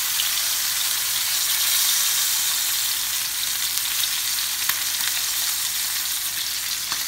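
Pork chops sizzling steadily in hot oil in a frying pan, their fat rind held down against the pan with tongs to render it. A couple of faint clicks are heard.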